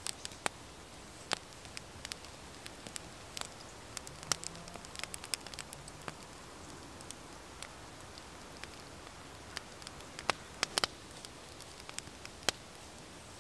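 Sharp, irregular crackles and clicks, a few to several a second and uneven in strength, over a soft steady hiss.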